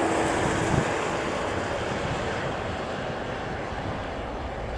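An airport crash fire truck's boom nozzle spraying water with the truck's engine and pump running: a steady rushing noise. A hum drops out about a second in, and the rush eases off as the spray is shut off.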